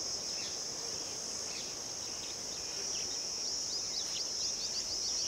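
Steady high-pitched chorus of insects such as crickets, with short falling bird chirps over it that come in a quick run about three and a half to five seconds in.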